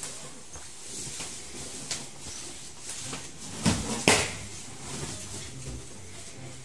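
Handling noises from a pop-up mosquito-net play tent as a child sets it up and crawls inside on a bed, with scattered light knocks and two sharper knocks close together a little past the middle.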